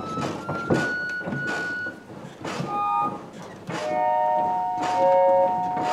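1800s pump organ (reed organ) sounding single steady reed notes that step higher one after another, with the keys clacking, as each key is tried in turn to find dead reeds. After a couple of short notes, three notes are held together for about two seconds near the end.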